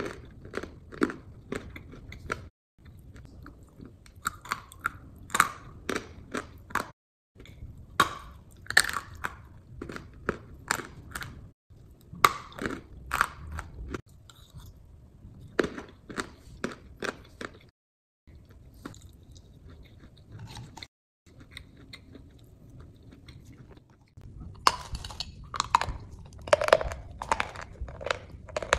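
Close-miked biting and chewing of crunchy food: rapid sharp crunches in bursts, with brief dead-silent breaks every few seconds where clips are spliced together.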